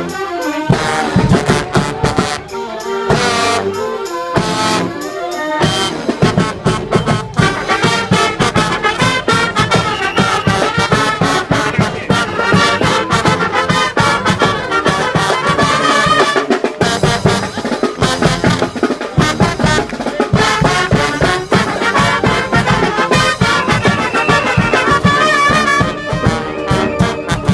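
Street brass band playing, trumpets and trombones over drums. A few short breaks come in the first six seconds, then a steady drum beat carries on.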